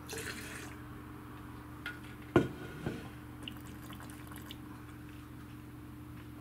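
Wine spat into a handheld plastic spittoon, a short hissing spray of liquid at the start. About two and a half seconds in comes a sharp knock with a brief ring, with a few lighter clicks around it, as things are set down on the table.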